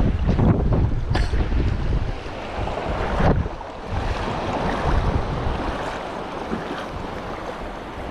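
Wind buffeting the microphone over shallow seawater sloshing and lapping, with two short sharp noises about one and three seconds in; the wind eases in the second half.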